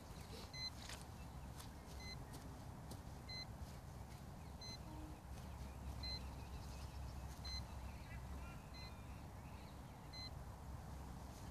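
Hubsan X4 Pro drone transmitter giving a short, high electronic beep about every one and a half seconds, over a faint low rumble.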